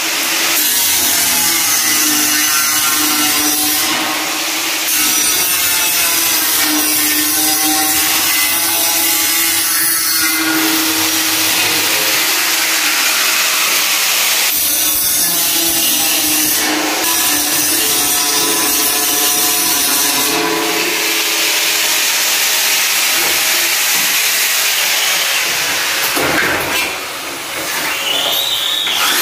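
Power tool running loud and almost without a break, dipping briefly near the end and then winding back up.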